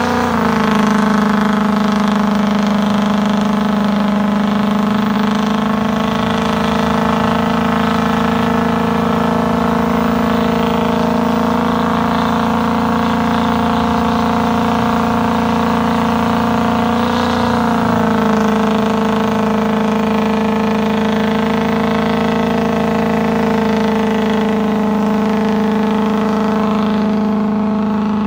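Ford 6.0 Powerstroke V8 turbo-diesel held on the rev limiter during a burnout, running loud at a steady high pitch. The pitch wavers briefly about 17 seconds in, then settles back.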